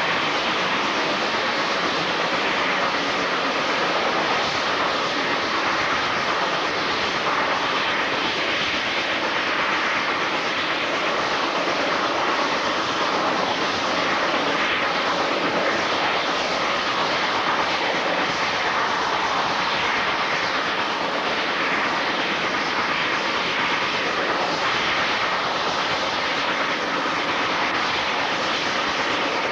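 Steam locomotive hauling a train at speed, heard from the moving train: a steady rushing noise of exhaust, wheels on the rails and wind, unchanging throughout.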